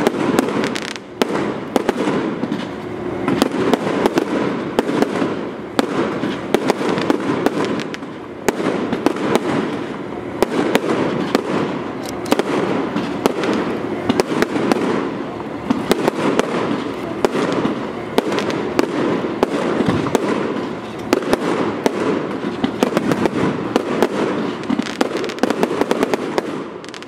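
Fireworks display going off in quick succession: many sharp bangs and crackles from bursting aerial shells and rising sparks, one after another without a break.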